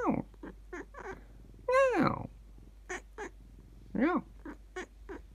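Meows traded back and forth between a house cat and a person mimicking meows. There are three long meows that rise and fall in pitch, the loudest about two seconds in, with short chirp-like calls between them.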